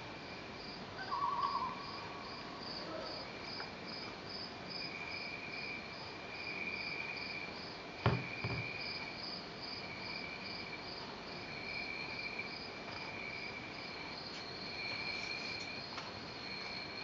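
Recorded cricket chirping played through the lamp's built-in nature-sound speaker: a steady, regularly pulsing high chirp with a second insect trill that swells and fades. Two sharp knocks half a second apart come about halfway through as the lamp is handled.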